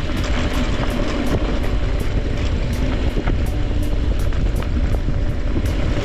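Wind rumbling on an action camera's microphone and tyres rattling over the trail as an e-mountain bike rides along, with background music under it.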